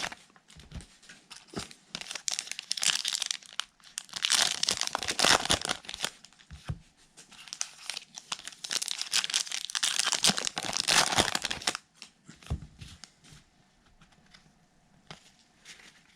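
Plastic wrapping of a baseball card blaster box and its packs being torn open and crinkled by hand, in two long spells of crackling and tearing, dying down to a few faint rustles near the end.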